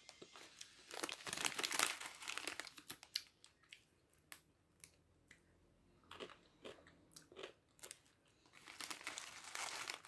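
Plastic snack bag crinkling as it is handled, in two spells about a second in and near the end, with scattered crisp crunches of a dry snack being chewed in between.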